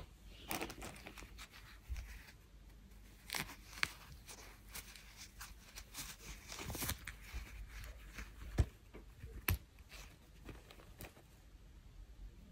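Packaging being unwrapped by hand: irregular tearing and crinkling, with scattered sharp clicks and knocks.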